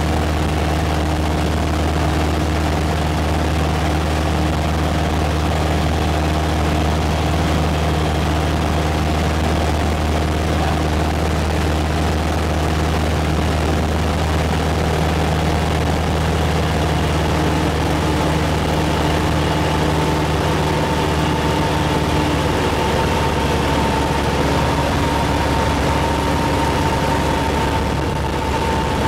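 Steady drone of a light aircraft's piston engine and propeller heard aboard in flight, with wind noise over it. A higher whine comes up about two-thirds of the way through.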